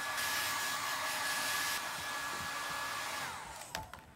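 Handheld hair dryer blowing steadily with a high whine, then switched off a little over three seconds in, its whine falling away as the motor winds down. A couple of light knocks follow.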